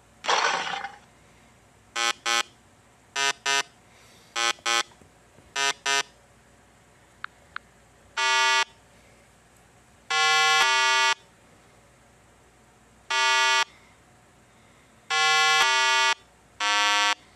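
A lion's roar ends within the first second. Then come electronic beeps: four quick pairs of short beeps about a second apart, two faint clicks, and then five longer buzzer-like tones, each held steady for half a second to a second.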